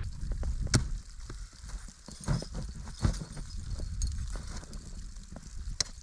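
Irregular sharp knocks and crunches of crampons and ice axes biting into snow and ice as a climber starts up a frozen waterfall, over a low rumble on the microphone.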